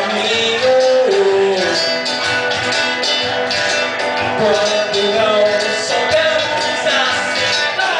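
Live acoustic band music: an acoustic guitar strummed alongside a hollow-body electric guitar, with a cajón keeping the beat.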